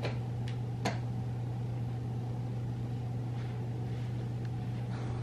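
A steady low hum of room background noise, with two faint clicks in the first second.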